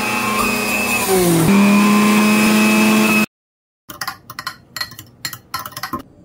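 Electric juicer motor running loud and steady; its pitch dips about a second in, then holds until it cuts off suddenly just past the middle. After a brief silence comes a metal spoon stirring juice in a glass, a run of quick clinks against the glass.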